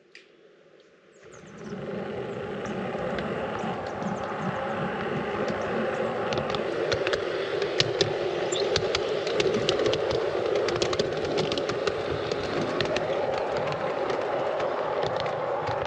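G scale model train running along garden track, heard from on board: a steady rolling and gear hum that fades in over the first couple of seconds, with irregular clicks of wheels over rail joints and points from about six seconds in.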